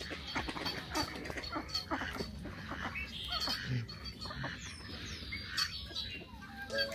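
Waterfowl calling: a busy jumble of short duck- and goose-like calls, with a few higher bird chirps.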